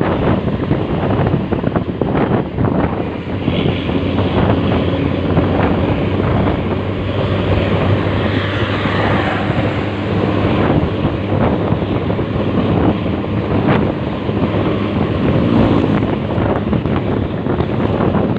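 Heavy wind buffeting the microphone over steady vehicle engine and road noise, as from a moving vehicle.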